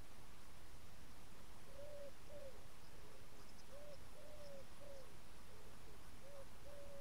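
A pigeon cooing: low hollow notes in repeated phrases, each a short coo, a longer held coo and a falling coo, starting a couple of seconds in.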